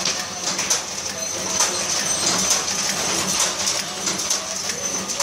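Automatic vertical form-fill-seal pouch packing machine running, with a repeated clacking of its sealing and cutting mechanism about once a second over a steady high-pitched whine.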